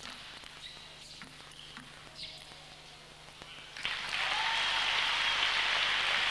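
Table tennis rally: the ball clicking sharply off the bats and table every half second or so, then about four seconds in the crowd breaks into loud applause as the point is won.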